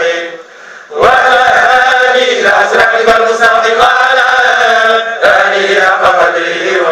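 A group of men chanting together in Arabic, a Tijani Sufi devotional chant with long held, wavering notes. The voices break off briefly just after the start and come back in about a second in.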